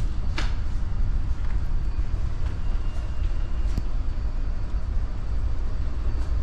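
Steady low rumble aboard a moving oil tanker at sea, with a short sharp sound about half a second in.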